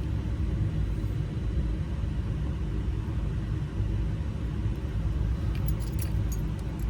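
Steady low mechanical rumble, with a few light metallic clicks near the end as small lock wafers and key parts are handled.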